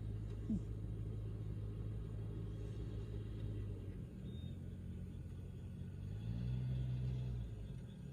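Calico cat making a low, steady rumbling breathing sound that the owner takes for snoring, swelling louder about six seconds in. A brief sharp sound comes about half a second in.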